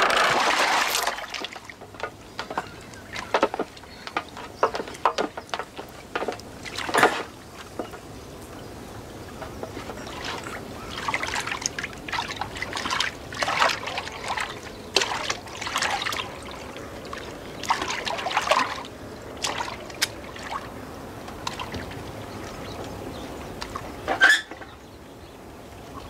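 Wooden rowing boat being rowed: oars dipping and splashing in the water at an uneven pace, with water trickling and sloshing between strokes. A louder splash at the start, and one sharp knock near the end.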